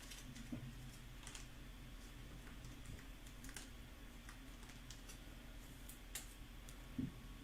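Faint, scattered light clicks and taps at an irregular pace, with a soft knock near the end.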